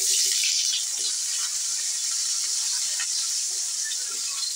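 Onion rings sizzling as they hit hot oil in a stainless steel pan: a loud, steady hiss that starts suddenly and eases slightly.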